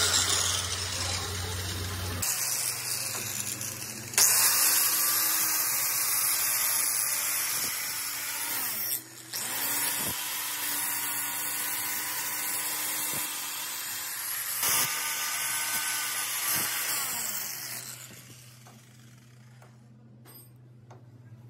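Electric angle grinder with an abrasive disc grinding the steel teeth of a differential pinion, with a steady motor whine under the grinding noise. It bites harder about four seconds in, breaks off for a moment near nine seconds, and winds down about eighteen seconds in.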